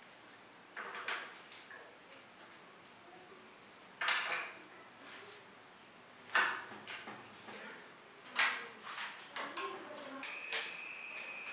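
Metal clinks and clicks of a hand tool and cantilever brake arms as the brakes are mounted and adjusted on a bicycle frame: four sharper clinks a couple of seconds apart, with smaller ticks between. A steady high tone starts near the end.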